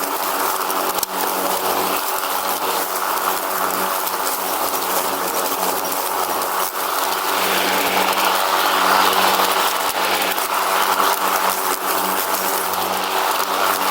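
Riding lawn mower engine running steadily at a constant speed, with a dense mechanical whir over the engine note.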